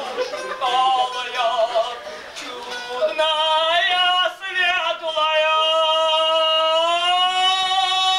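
A woman singing in a high voice: short phrases, then from about three seconds in one long held high note with a slight waver in pitch.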